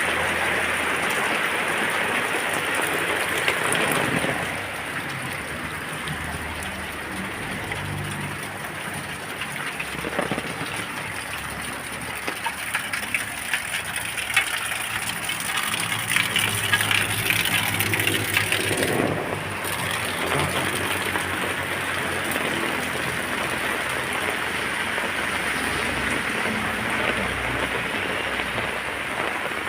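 Rain falling steadily on plants, a continuous hiss of drops. It turns a little quieter about four seconds in, and crisp, closer drip and splash ticks stand out in the middle.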